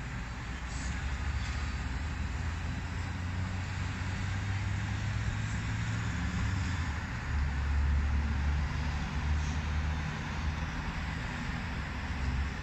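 Steady city traffic noise: cars and buses running along a busy road, with a deeper engine rumble swelling about seven seconds in.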